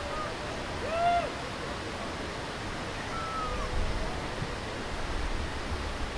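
Water pouring over a river weir, a steady rushing. Two brief high-pitched calls rise and fall over it, about a second in and again about three seconds in.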